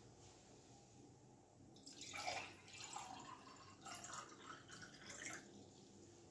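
Water poured from a glass bottle into a glass tumbler, a splashing trickle that starts about two seconds in and stops shortly before the end.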